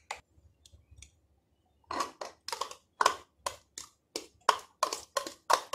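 A few faint ticks, then from about two seconds in a run of short, quick crackles and squelches, about three a second: thick yogurt being worked out of a small plastic cup into a bowl.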